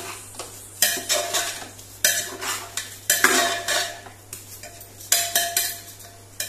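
Spoon stirring rice into the masala in a pot, scraping against the pot in several uneven strokes.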